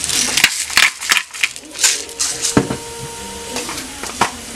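Salt and pepper grinder cranked over a frying pan in a run of short, gritty crunches, with a couple more later on. Chopped onion and garlic sizzle softly in olive oil underneath.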